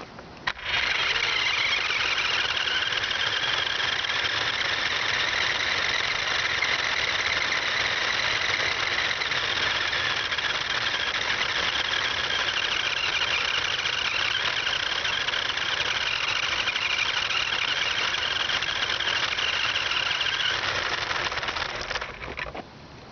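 Battery-powered toy remote-control car driving, its electric motor and gears giving a steady whine with tyre noise, heard from a camera strapped to the car itself. It starts abruptly about a second in and cuts off near the end.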